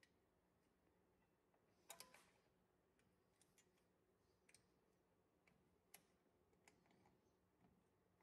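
Faint metal clicks and ticks as a rear drum brake's hold-down spring is pressed onto its pin with a spring tool. There is a short cluster of clicks about two seconds in, then scattered single ticks.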